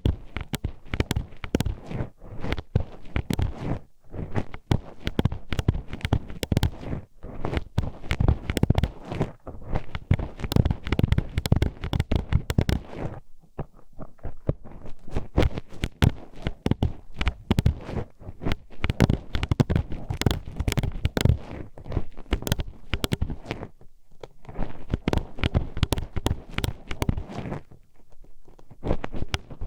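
Metal hairpin poked, tapped and scraped inside the ear of an ASMR microphone: rapid, irregular clacking clicks with a low rumble, easing off briefly a few times.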